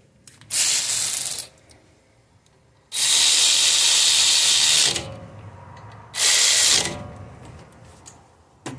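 Power ratchet running in three bursts, the middle one about two seconds long, as it tightens a brake caliper bolt.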